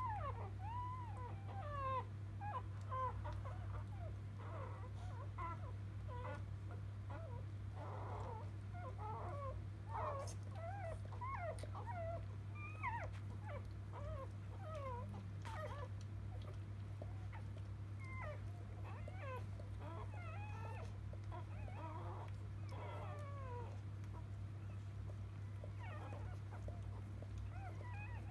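Newborn Labrador Retriever puppies squeaking and whimpering over and over: short, thin squeaks that rise and fall in pitch, several a second at times. A steady low hum runs underneath.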